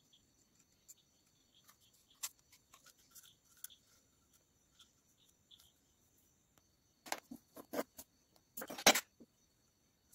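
Hands handling a small plastic tool housing and loose parts: scattered light clicks and rustles, then a short run of louder knocks and clatter about seven to nine seconds in.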